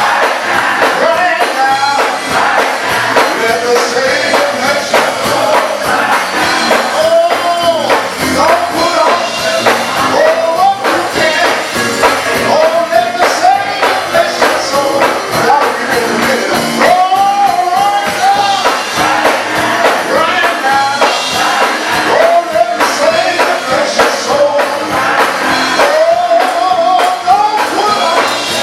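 Church choir singing gospel music with instrumental accompaniment, the sung melody gliding and bending continuously.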